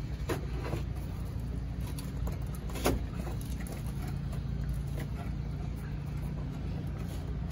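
A wire being tugged and pulled through a vehicle's cab wiring, with a few scrapes and a sharp click about three seconds in, over a steady low hum.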